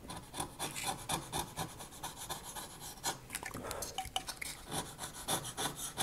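Flat chisel blade of a hobby knife scraping across thin wooden deck planks in many short, quick strokes, shaving the planked deck smooth in place of sanding.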